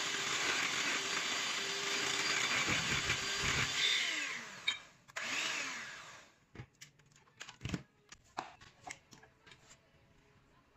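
Electric whisk running in a stainless steel bowl of chocolate mixture, a steady whirr that winds down about four seconds in, with a brief second burst just after. Then a few light clicks and knocks.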